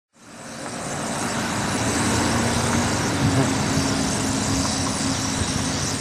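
Dense, loud din of a huge flock of birds massed in a tree, thousands of calls blurring into one steady noise, with a low hum underneath. It swells up during the first second and fades near the end.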